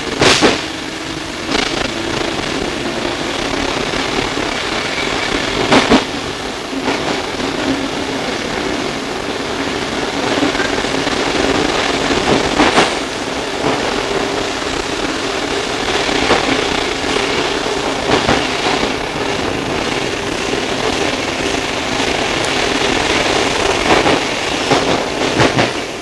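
Sydney R set double-deck electric suburban train running, heard from inside the carriage: a steady rumble and hum with a few sharp clacks at irregular moments.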